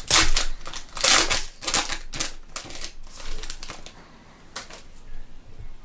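Foil trading-card pack wrapper crinkling as it is torn open and handled, in a quick run of crackling rustles over the first three seconds, then quieter handling with one sharp click.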